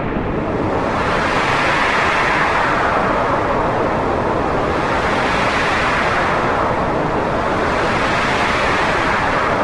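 Wind blowing in a steady rush that swells and eases every few seconds.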